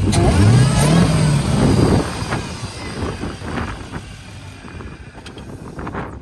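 Supercharged Hellcat 6.2-litre HEMI V8 in a Dodge Charger revved once from idle: the pitch climbs over about a second, holds, then drops away about two seconds in.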